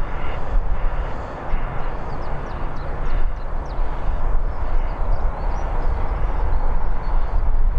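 An Airbus A320-214's CFM56 turbofan engines running at low taxi thrust as the airliner turns onto the runway to line up: a steady, loud rumble.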